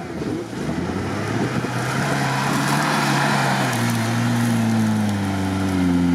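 Suzuki Samurai's engine labouring under load while climbing a steep grassy bank, its note sagging slowly lower over the last couple of seconds as the climb bogs it down, over a broad rushing noise.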